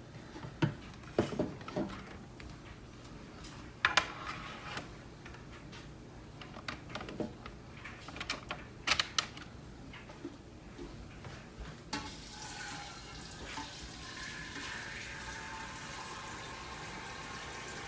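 Scattered clicks and knocks of plastic parts being handled, then from about two-thirds of the way in a tap running steadily as the Keurig's water reservoir is filled.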